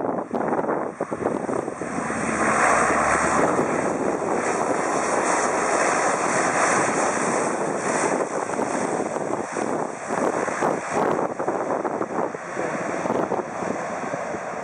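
USAF C-130 Hercules' four turboprop engines and propellers running as the aircraft touches down and rolls along the runway. The sound is loudest from about two to eight seconds in, then eases a little as it moves away.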